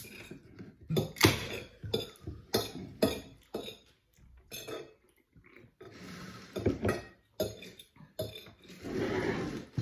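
A metal fork clinking and scraping against a ceramic dinner plate during a meal: a string of short, sharp clicks at an uneven pace.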